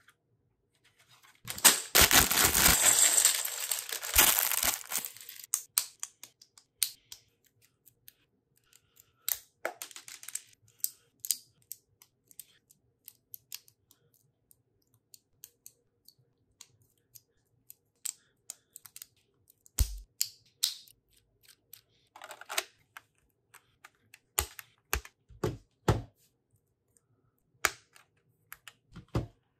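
A plastic bag of Lego pieces torn open and the pieces tipped out onto the mat, a loud crinkling clatter lasting a few seconds near the start. After that come scattered sharp clicks of Lego bricks being picked up and snapped together.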